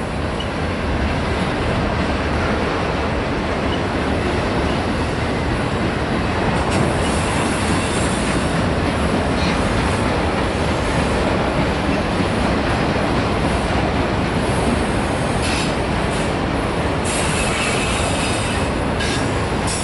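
Enclosed autorack cars of a long freight train rolling past: a steady rumble of steel wheels on the rails. The sound turns brighter and harsher for about two seconds near the end.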